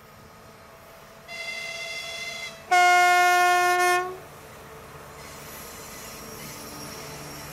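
2TE25KM diesel locomotive sounding two horn blasts, a greeting from the crew: a higher-pitched blast of about a second, then a louder, lower one of about a second and a half. Afterwards the locomotive's diesel engine running as it comes closer and passes.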